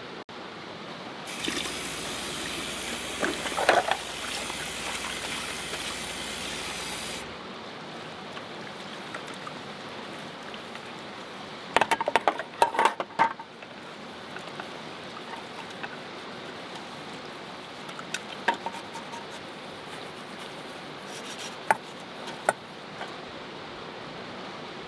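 Water running from a faucet into a stainless steel sink for about six seconds, with a low hum underneath while it runs. Then the clink and clatter of enamelware bowls and utensils being washed in the sink, in a quick cluster about twelve seconds in and a few single knocks later.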